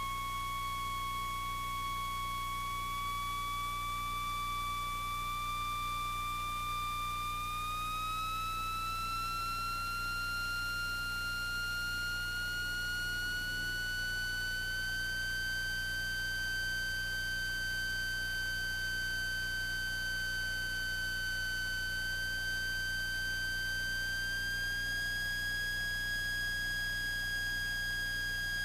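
Steady electrical whine with overtones on the cockpit intercom audio, stepping up slowly in pitch several times as engine rpm rises, typical of alternator whine leaking into the headset feed; a low steady hum lies beneath it.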